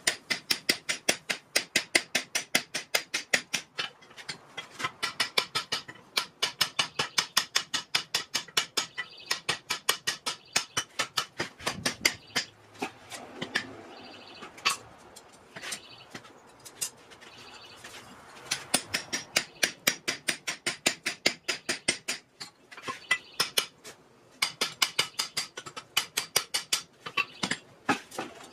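Hand hammer blows on a steel drift driven through the eye of a hot steel hammer head resting on a steel bolster block. The blows are rapid and sharp, several a second, in runs broken by short pauses.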